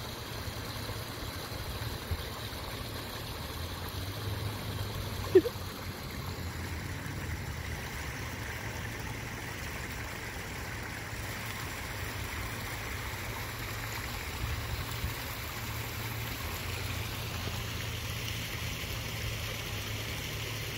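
Steady outdoor background: a continuous rushing noise with a low rumble underneath, and one short, sharp sound about five seconds in.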